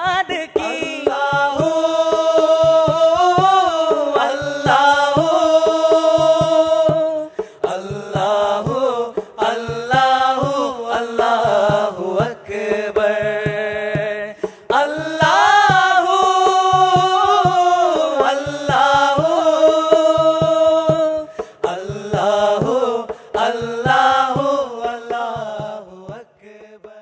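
Background music: a solo voice singing a melodic devotional-style song with long, ornamented held notes over a steady beat. It fades out near the end.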